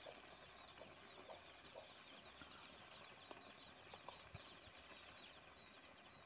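Near silence. An onion-tomato masala sizzles faintly in oil in a steel karahi over a wood fire, with scattered small pops. The masala is fried to the point where the oil separates.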